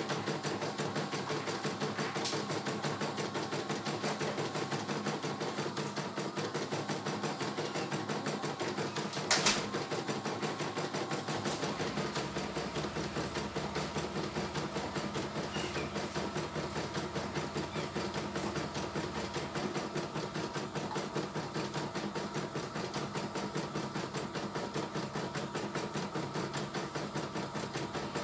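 CNY E900 computerised embroidery machine stitching a design, its needle running in a fast, even rhythm of strokes as the hoop moves the fabric. A single louder click comes about nine and a half seconds in.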